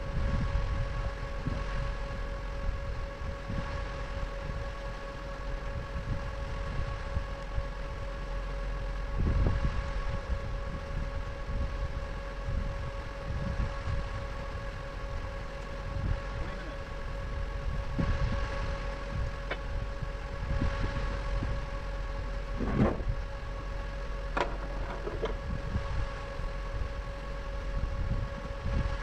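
John Deere 750L dozer's diesel engine idling steadily, with a steady whine over a low rumble. A couple of brief knocks come about three-quarters of the way through.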